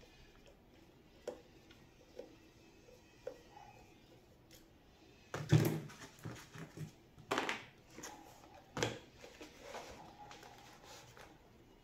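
Handling noise from taking the capacitor off a stand fan's motor: a few light clicks at first, then from about five seconds in a run of irregular knocks, rattles and scrapes as the motor housing and fan body are shifted on the bench and the capacitor is worked loose.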